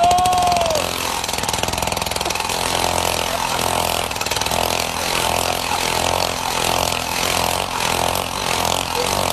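Two-stroke engine of a gas-powered ice auger running hard, its bit bound in the ice so the engine's torque whirls the operator around the auger; the sound swells and dips in an even rhythm. A voice calls out once in the first second.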